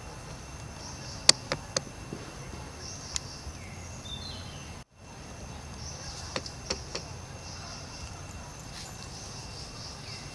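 Forest ambience with a steady high insect drone and chirring. A few sharp clicks come in a quick cluster a little over a second in and again just past the middle. The sound cuts out briefly just before halfway.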